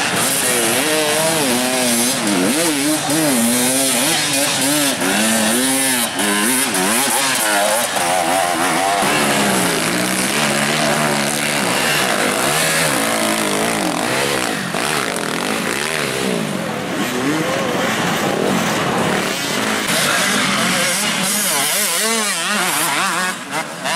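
Several enduro dirt bike engines revving, their notes rising and falling unevenly and overlapping.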